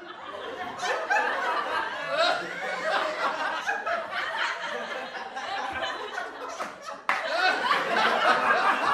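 People talking and laughing over one another, with an abrupt cut to a new stretch of talk and laughter about seven seconds in.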